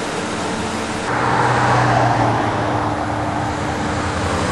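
Road traffic: a vehicle drives past close by, its engine and tyre noise swelling about a second in and then slowly easing off over a steady low hum.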